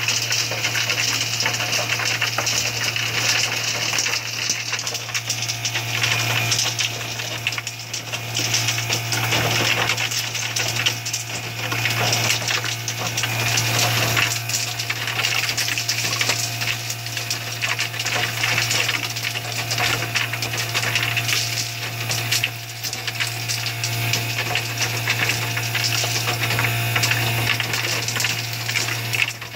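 Ice cubes dropping from a Hoshizaki ice maker's chute and clattering onto the pile of ice in its storage bin, many small clinks in a row. A steady low hum from the running machine lies underneath.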